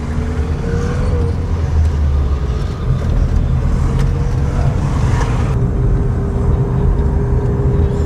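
Steady engine and road noise inside a moving car's cabin: a low rumble with a faint steady hum. The hiss above it thins out about five and a half seconds in.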